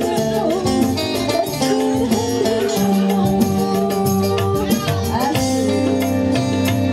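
Live dangdut band music: electric guitar and keyboard over a steady drum beat, with a melody line sliding up and down in the first half.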